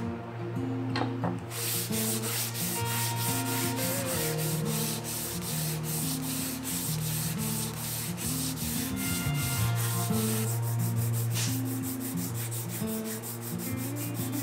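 Hand sanding wood with a sandpaper-wrapped sanding block: quick, rhythmic back-and-forth rasping strokes along frame pieces, over background music.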